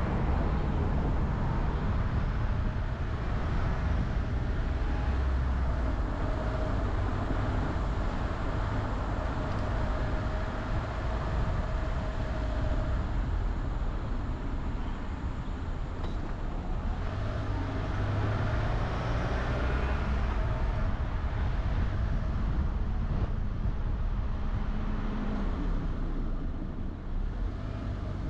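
Car driving on a city road: steady engine and tyre rumble, with the engine note rising for a few seconds about two-thirds of the way through as it picks up speed.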